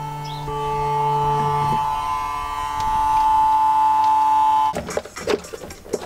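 Electric bilge pump motor running dry with a steady buzzing hum, cutting off suddenly about a second before the end, followed by a few clicks.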